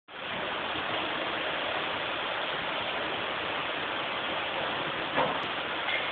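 Heavy rain pouring down onto a street: a steady, even hiss, with one brief sharper knock about five seconds in.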